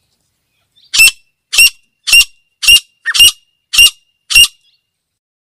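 Female grey francolin calling: seven short, sharp, harsh calls in an even series, about two a second.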